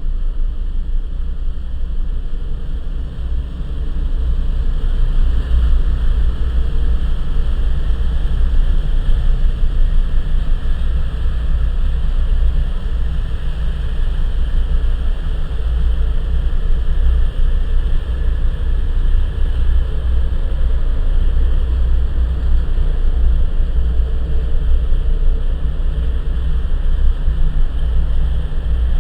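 Freight train cars rolling past: a steady, loud low rumble without any horn.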